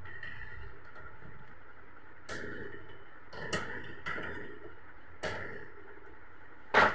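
Short plastic clicks and knocks from hands handling the print head and carriage parts inside an Epson L380 inkjet printer. There are about five separate clicks, the loudest one near the end.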